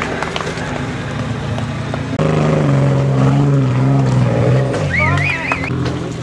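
Off-road trial SUV's engine working hard at low speed over rough ground, its pitch rising and falling as the throttle is worked, with scattered knocks and clicks in the first two seconds. A short trilling whistle sounds about five seconds in.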